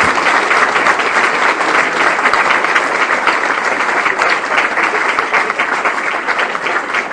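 Audience applauding: many people clapping together, dense and steady.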